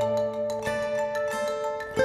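Background music: a melody of sustained, bell-like pitched notes over a low held tone.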